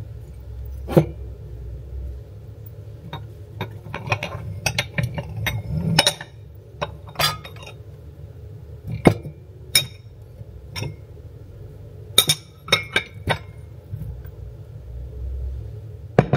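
Drinking glasses and cups clinking as they are picked up and set down on a cabinet shelf: a string of sharp clinks at uneven intervals, some ringing briefly.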